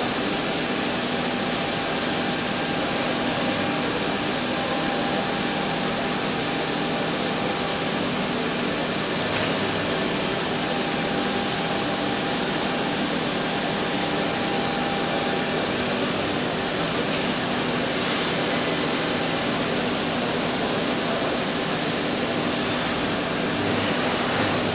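Automatic CNC wood router running steadily, a constant whine over a hiss, as it machines wooden chair legs.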